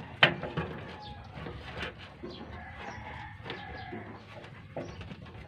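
Chickens clucking, with a rooster crowing faintly in the middle. Scattered sharp clicks and knocks, with one louder click just after the start.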